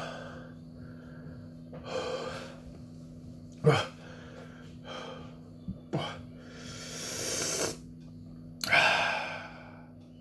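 A man breathing hard through his mouth and gasping from the burn of Carolina Reaper peppers: a string of sharp breaths, a short sharp catch a little over a third of the way in, a long hissing exhale about seven seconds in and a louder gasp near the end.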